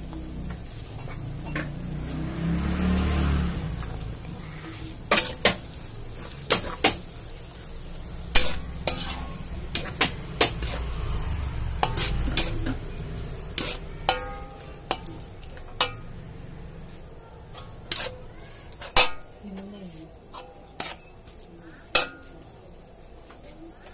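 Metal spatula stirring and scraping bacon, mushrooms and creamed corn in a frying pan over a low sizzle. From about five seconds in come many irregular sharp clacks of the spatula striking the pan.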